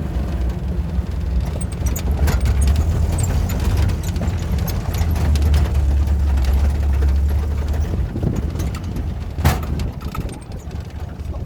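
Off-road vehicle driving over rough ground: a heavy low rumble with scattered rattles and knocks, and one sharp knock about nine and a half seconds in.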